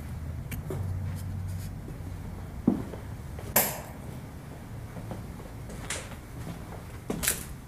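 Footsteps and scuffs of someone walking through empty rooms, with a few sharp knocks. The loudest is about three and a half seconds in, and there is a pair near the end, over a low steady rumble.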